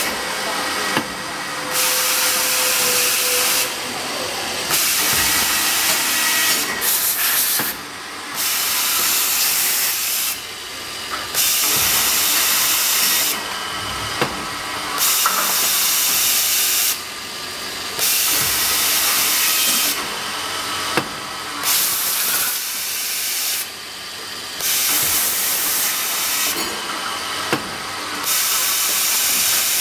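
Multi-station automatic tapping machine with rotary indexing table running through its cycle: a loud, high hiss that cuts out briefly about every three seconds and starts again, with a few sharp clicks.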